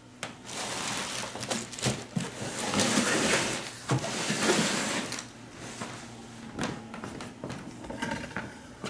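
Plastic protective bag crinkling and rustling under a flat-screen TV as it is laid face down on it, with light knocks as the set is handled and settled. The rustling is loudest through about the first five seconds, then gives way to a few quieter clicks.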